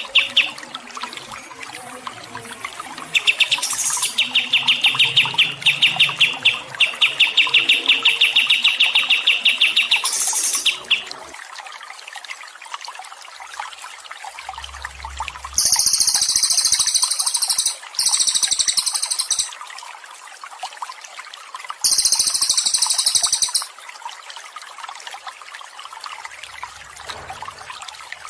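Songbirds singing over gently trickling water. A fast run of repeated chirps lasts several seconds, then come three bursts of high, buzzy trilling.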